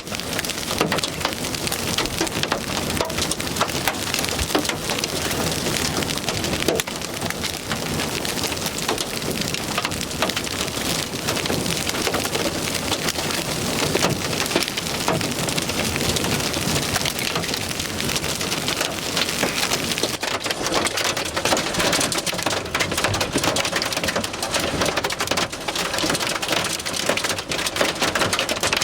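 Wind-driven hail, about three-quarter inch with some quarter-sized stones, pelting down with rain in a dense, unbroken rattle of impacts.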